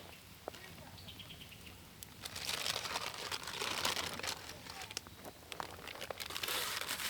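Crinkling, rustling handling noise in two stretches, the first about two seconds in and the second near the end, with many small clicks.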